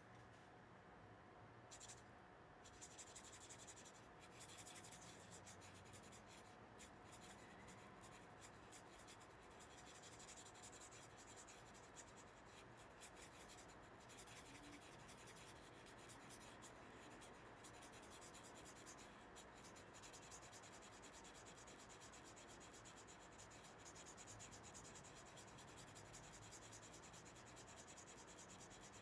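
Faint, continuous scratching and rubbing of drawing and painting strokes on watercolour paper.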